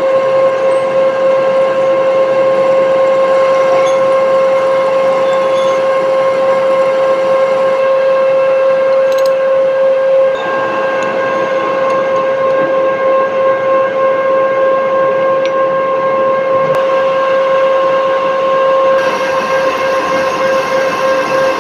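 Machine-shop noise from running machinery: a loud, steady, high whine over a rough mechanical rumble.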